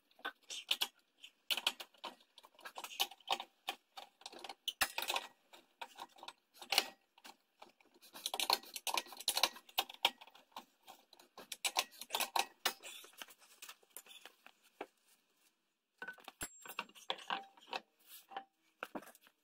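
Metal lug nuts clicking and rattling as they are spun onto the wheel studs by hand while the wheel is mounted on the hub, in irregular clusters with a short pause about three-quarters of the way through.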